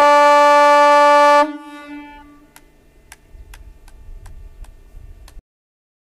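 Ship's air horn giving one loud blast of about a second and a half: a single steady note with strong overtones that starts and stops abruptly. Afterwards there is a low rumble with a series of faint ticks.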